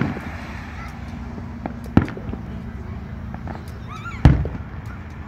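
Aerial firework shells bursting: three sharp booms about two seconds apart, the last the loudest, with fainter pops and crackles between them.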